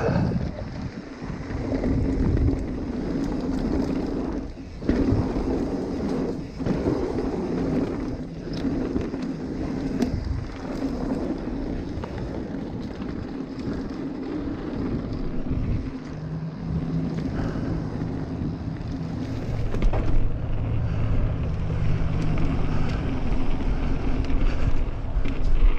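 Mountain bike riding a dirt singletrack: tyres rolling over dirt and dry leaves with wind noise on the microphone, and scattered knocks and rattles as the bike hits bumps.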